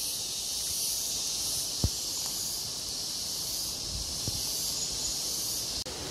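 Tropical insects, likely cicadas, keep up a steady high-pitched shrill drone with a faintly pulsing upper edge. A single low thump comes about two seconds in, and the sound breaks off for an instant near the end.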